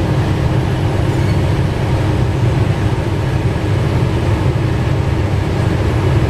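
Steady, loud diesel engine rumble heard from inside a locomotive cab, as a High Speed Train power car and its coaches pass close by on the next track.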